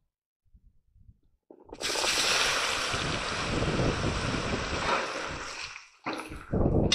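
Diced raw potatoes frying in hot oil in a kazan: after a moment of near silence a loud, steady sizzle sets in abruptly, dies down briefly near the end and then flares up again.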